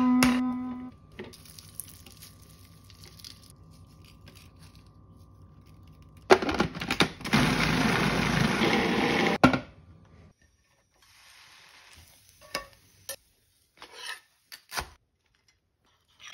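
Food processor running for about three seconds, starting about six seconds in and cutting off, blending butter with roasted garlic. It is followed by scattered light clicks and scrapes of a utensil against a bowl.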